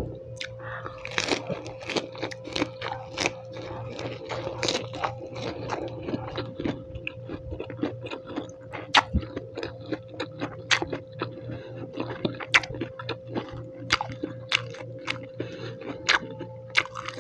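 Close-miked chewing of a lettuce wrap of dried pork adobo: crunching of fresh lettuce and many sharp, wet mouth clicks throughout. A steady low hum runs underneath.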